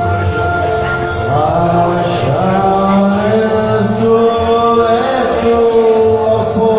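A man singing into a handheld microphone over music accompaniment with a steady beat, holding long notes.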